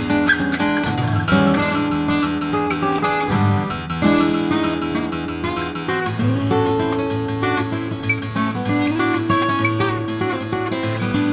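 Background music: an instrumental piece led by acoustic guitar, plucked and strummed, with no singing.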